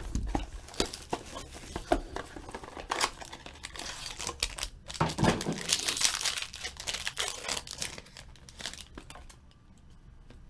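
A foil Panini football card pack being torn open and crinkled by hand: a run of crackles and rustles that dies down near the end.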